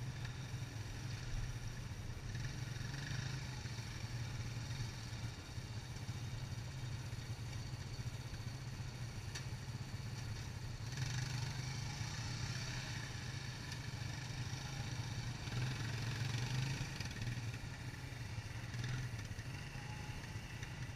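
Four-wheeler ATV engines idling and running at low speed, a steady low drone that swells briefly about halfway through and again about three-quarters of the way through as a quad is given some throttle.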